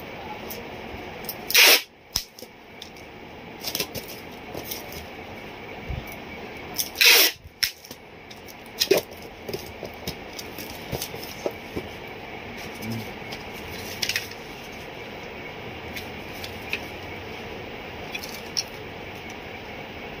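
Parcel being packed by hand: cardboard and paper rustling with scattered light taps and clicks. Twice, about two seconds in and about seven seconds in, packing tape is ripped off its roll in a short, loud tearing burst.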